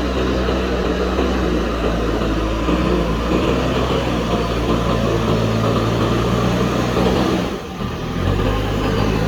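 JCB backhoe loader's diesel engine running steadily. About three quarters of the way through it briefly drops in level, then comes back with a slightly different note.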